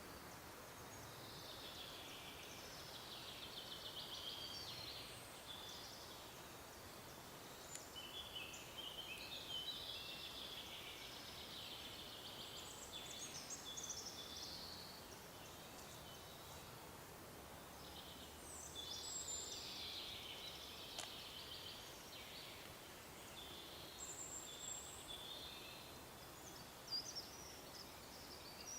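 Forest songbirds singing faintly in a string of chirping, warbling phrases, one after another, over a quiet background hiss, with a couple of brief clicks.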